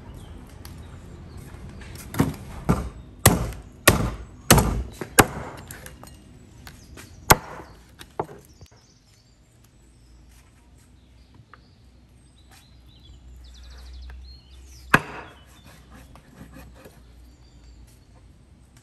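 Heavy cleaver chopping through a whole beluga sturgeon on a wooden cutting board to take off its head: about seven sharp blows in quick succession, then two more and, a while later, a single last chop.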